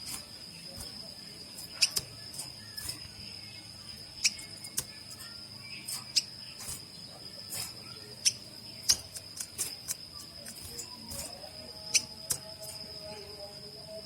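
A cricket trills steadily at one high pitch while short, sharp chip calls come at irregular moments, many of them loud, typical of small finches calling. From about eleven seconds in, a fainter, lower drawn-out sound with several tones joins in, sagging slightly in pitch.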